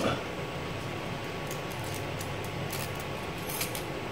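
A few light metallic clinks as a Dana 30 pinion gear and bearing are set down into the axle housing, over a steady background hum.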